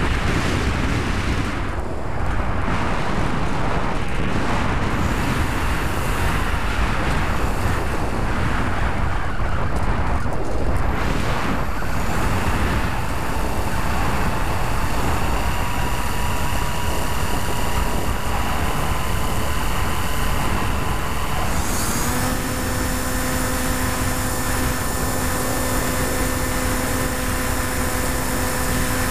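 Wind rushing over a GoPro riding on a Bixler 2 foam RC plane in flight, with the whine of its electric pusher motor and propeller. A faint whine slowly rises in pitch from about 12 seconds in. About 22 seconds in, the motor note changes suddenly to a stronger, steady hum with a clear pitch.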